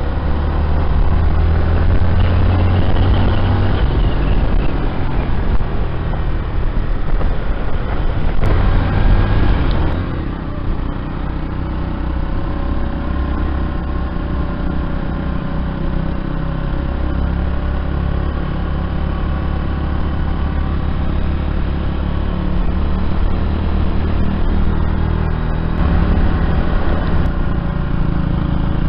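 Motorcycle engine running while riding along a road, heard from on board with wind rushing over the microphone. The sound drops a little about ten seconds in, then runs steadily.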